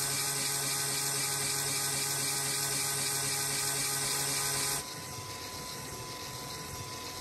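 Lego Technic inline-four OHV 8-valve engine model turning over, driven by an electric Lego motor: a steady whirring whine of motor, plastic gears and moving parts. About five seconds in it drops to a quieter, duller whirr.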